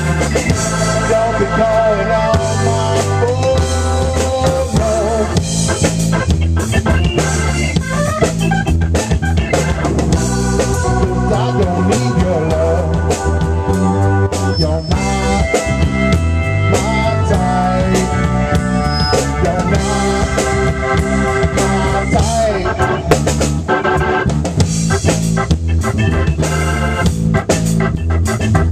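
Rock band playing: Hammond Porta-B organ holding chords over a G&L L-2000 electric bass and a Tama Silverstar drum kit keeping a steady beat.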